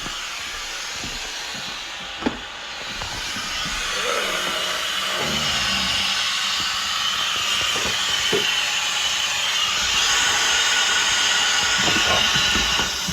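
Compressed air hissing steadily out of a leak in the house's plumbing during an air pressure test, escaping at an open water hose on the washer hook-up; the hiss grows louder a few seconds in, with a few light knocks.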